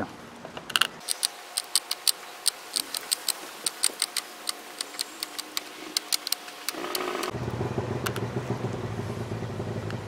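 Tin snips cutting through the wire mesh of a wastebasket: a quick run of sharp snips, about three or four a second, for several seconds. About seven seconds in, a steady low engine hum comes in and keeps going.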